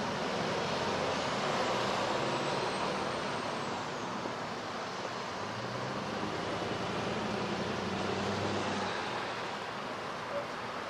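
Steady noise of street traffic, with a vehicle engine's low hum most noticeable in the middle.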